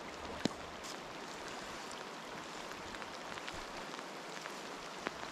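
Steady rain falling on the surface of a flowing river, an even hiss of many small drops. A sharp click about half a second in, and a fainter one near the end.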